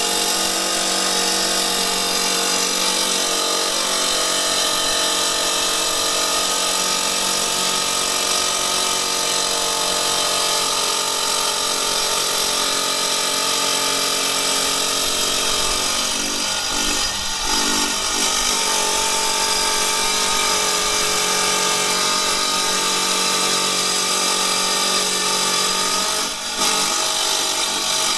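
Electric wet tile saw running steadily with a constant whine as it bevel-cuts a porcelain stoneware tile at 45 degrees. The sound dips briefly about seventeen seconds in and again near the end.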